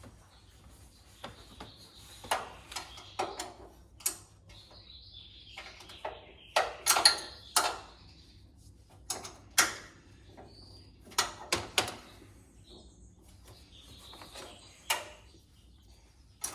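Hand tools working on a tool cart's caster fasteners, a Phillips screw and a 10 mm nut: irregular sharp metallic clicks and knocks, about fifteen in all, with quiet scraping between them.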